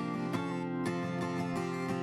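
Background music led by a plucked acoustic guitar, with a new note or chord about every third of a second.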